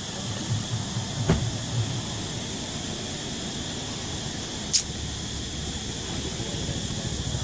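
Steady, high-pitched insect drone over a low rumble, with a light knock about a second in and a sharp click near five seconds.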